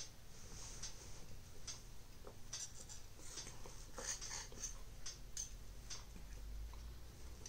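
Metal fork and knife clicking and scraping against a ceramic plate while cutting pancakes: faint, irregular clicks and short scrapes.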